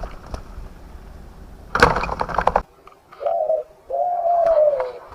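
Spotted dove cooing: a short note, then a longer note falling slightly in pitch, about three seconds in. About two seconds in there is a loud, brief clattering rustle.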